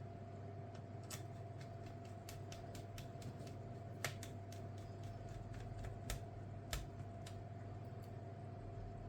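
Irregular light clicks and taps of small tools and parts being handled while a laptop is taken apart, with three sharper clicks in the middle. A steady low hum sits underneath.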